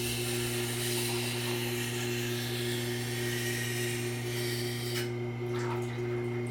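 Electric grinding machine running with a steady motor hum while abrasive grinding or sanding hisses against the work. The grinding noise stops about five seconds in and the motor keeps humming.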